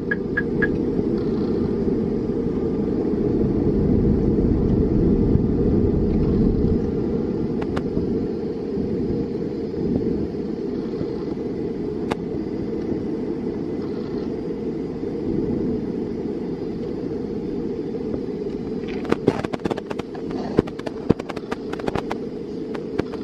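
Steady low rumble of airflow and engines inside an Airbus A300-600 cockpit on final approach. About nineteen seconds in, a run of sharp knocks and rattles begins.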